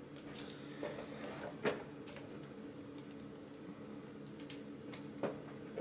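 Faint steady hum of a running desktop computer, with a few soft clicks.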